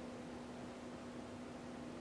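Room tone: a steady hiss with a low, even electrical hum.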